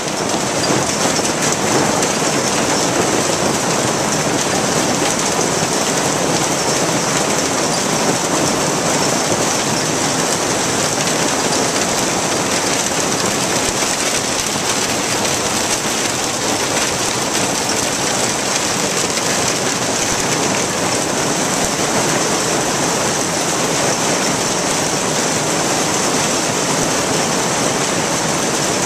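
Heavy hailstorm pelting down: a loud, dense, unbroken rush of hailstones falling without let-up.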